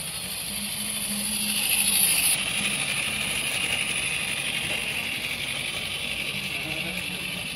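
Live-steam model Climax geared locomotive running with a steady hiss of steam over a faint low hum. The hiss swells and then drops abruptly a little over two seconds in.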